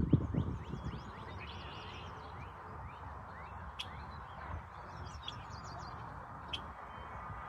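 Small songbirds chirping, a stream of short quick high notes, with a few sharp ticks and a steady background hum. Low thumps in the first second.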